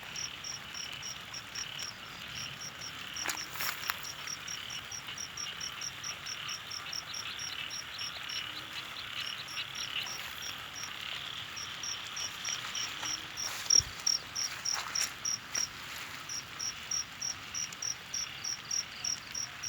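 Insects chirping in a steady, regular pulse, about three to four chirps a second, over a continuous insect buzz; a few sharp knocks, the loudest about fourteen seconds in.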